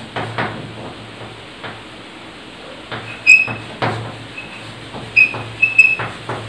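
Chalk writing on a blackboard: irregular taps and scratches as strokes are made, with several short high-pitched chalk squeaks.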